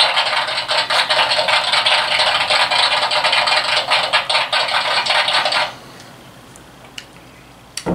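Thin plastic water bottle crackling and crinkling in the hand as it is gripped and drunk from: a dense, scratchy crackle that stops suddenly about six seconds in.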